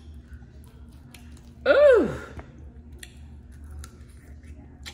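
A woman's short vocal hum of enjoyment while eating, rising then falling in pitch, about two seconds in, followed by a few faint mouth clicks as she bites into a barbecue chicken wing.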